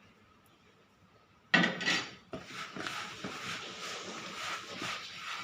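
A spoon knocks against a bowl about a second and a half in, then scrapes and stirs a thick mixture of dried grated coconut and condensed milk in a steady rubbing clatter.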